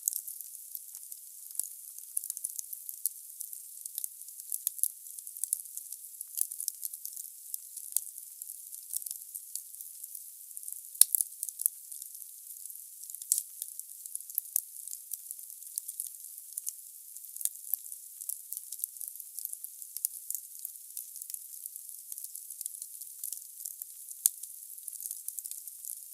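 Wood fire burning in a fireplace: a steady hiss with dense crackling of the burning logs, a sharp pop about eleven seconds in and another near the end.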